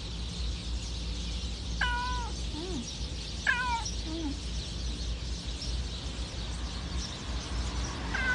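Domestic cat meowing in short calls that drop in pitch: two meows about two and three and a half seconds in, each followed by a quieter low sound, and another beginning at the very end.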